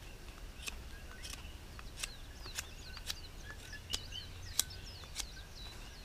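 Small blade of a Victorinox Swiss Army Camper 2 pocketknife whittling a stick, each stroke a short sharp scrape, roughly one every two-thirds of a second. Birds chirp faintly in the background.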